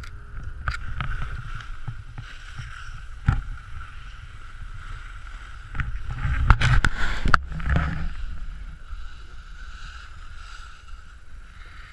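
Wind rumbling on an action camera's microphone while it speeds down a snow slope, with the hiss of edges scraping over packed snow and a few knocks. The rumble and scraping grow loudest about six to eight seconds in.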